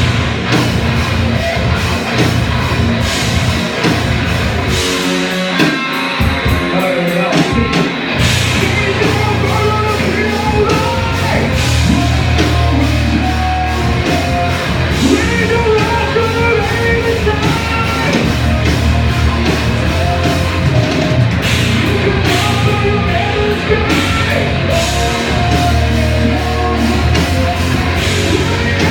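A live rock band playing a loud, heavy song with drums, distorted guitars and bass, with some singing. The bass drops out briefly about five seconds in, then comes back.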